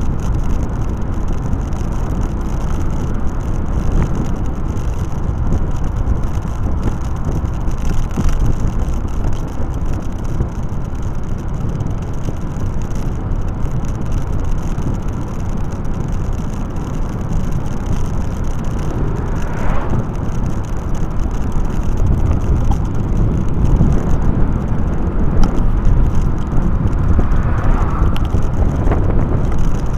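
Steady wind rush on the microphone of a moving vehicle, heaviest in the low range, with road and motor noise underneath. A couple of brief higher-pitched sounds come through around two-thirds of the way in and near the end.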